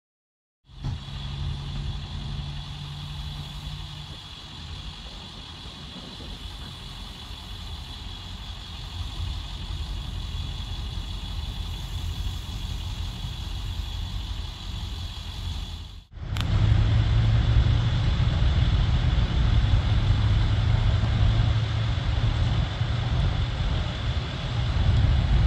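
Vehicle engines idling with road traffic, a steady high-pitched whine above them. About 16 seconds in, the sound cuts briefly and comes back louder, with a deeper steady engine idle.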